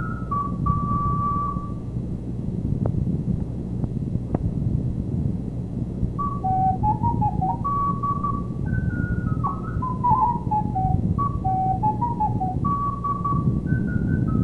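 A solo recorder plays a single melodic line in short phrases of held and quick notes, pausing for a few seconds early on, over a steady low background hum.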